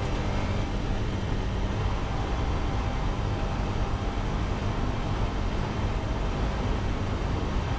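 Race car's engine running at steady revs, with road and wind noise, heard from inside the cabin.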